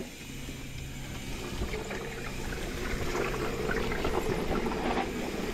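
Mountain bike rolling down a sandy dirt singletrack: tyres hissing and crunching over loose dirt, with many small rattles and clicks from the bike, the noise building gradually as it picks up speed.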